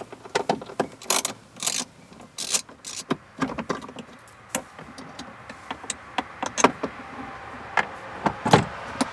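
Irregular clicks, taps and short scrapes of hand work on the Jeep's sun visor mount: its two T20 Torx screws being backed out and the visor and its hardware handled.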